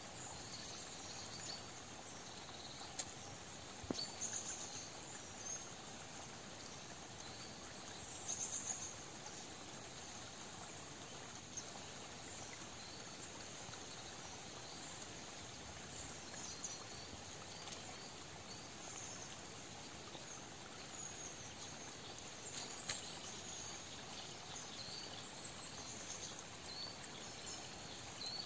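Quiet autumn woodland ambience: a steady soft hiss with scattered faint, high, short chirps now and then.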